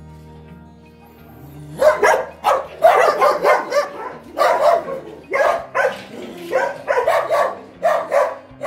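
Kennelled shelter dogs barking repeatedly, about two barks a second, starting about two seconds in, over quiet background music.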